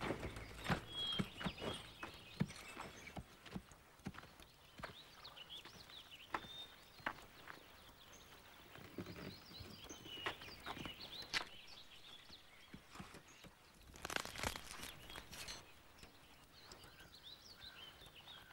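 Sparse footsteps and a horse's hoof steps on dirt, heard as scattered soft knocks, with faint bird chirps here and there. A short burst of rustling noise comes about fourteen seconds in.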